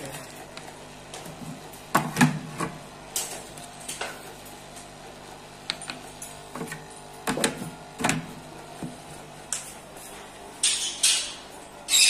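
Scattered light clicks and knocks of plastic, a fish-food jar and its cap being handled and tapped, over a faint steady low hum. A few short hissy bursts come near the end.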